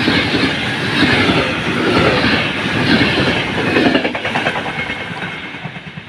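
Berlin–Warsaw Express passenger coaches passing close at speed: wheel rumble and clatter, with a regular beat about once a second as each coach's wheels go by. The sound fades away after the last coach passes about four seconds in.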